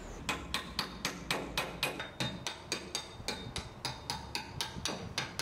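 Quick, even hammer blows, about four a second, kept up without a break.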